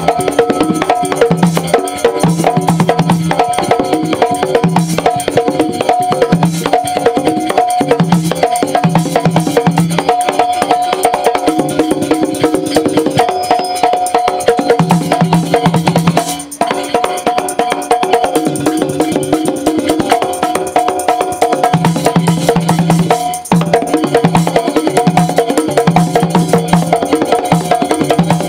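Live Javanese gamelan music played over a stage PA, with drumming and busy percussion over repeating held tones. The music breaks briefly twice in the second half.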